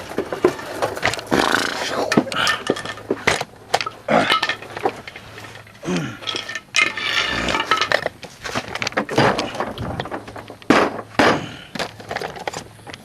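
Metal clinking, knocking and scraping as a CV axle half shaft is worked out of a car, with a few short grunts of effort.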